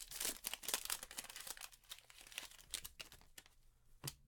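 Plastic wrapping of a trading card pack crinkling and tearing as it is opened, the crackling dying away after about three seconds, followed by a single soft knock near the end.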